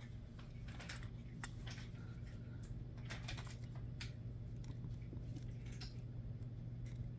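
Light, irregular clicking and clinking of small bracelet parts, metal chain, shell pieces and a slide clasp, being handled and fitted together, over a steady low hum.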